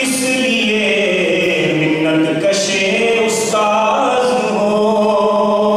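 A man's voice chanting through a handheld microphone in long, drawn-out melodic phrases, with notes held a second or more and sliding between pitches.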